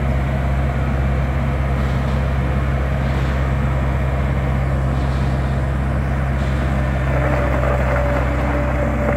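John Deere 317 skid steer loader's diesel engine running steadily as the machine drives and turns. A steady higher whine joins the engine about seven seconds in.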